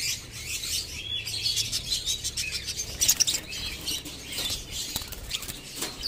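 Many African lovebirds chirping and chattering, a dense stream of high calls, with wing flapping and a few sharp knocks, the loudest about halfway through.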